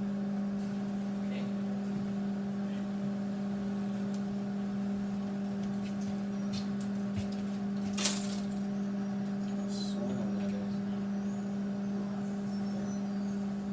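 Panasonic microwave oven running with a steady low hum while it heats food. A single short clink about eight seconds in.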